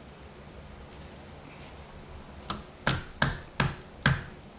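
Five sharp knocks in quick succession in the second half, from tapping a piston down through a ring compressor into the cylinder of a John Deere two-cylinder engine block; the piston is not sliding in easily.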